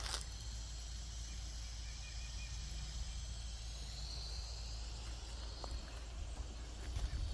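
Insects trilling steadily in a high, thin chorus, with a few footsteps crunching on dry leaf mulch at the start and again near the end.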